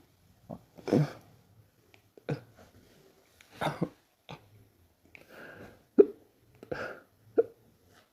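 A person hiccuping over and over: about nine short, sudden hiccups at uneven intervals, the loudest about six seconds in.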